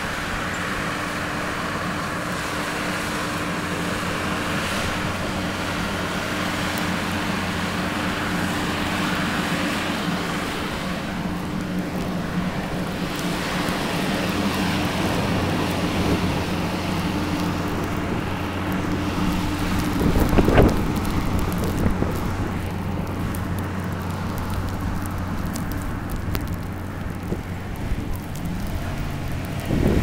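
Blizzard wind buffeting the microphone, with the steady low hum of a vehicle engine underneath that fades out near the end. Louder gusts hit about twenty seconds in and again at the end.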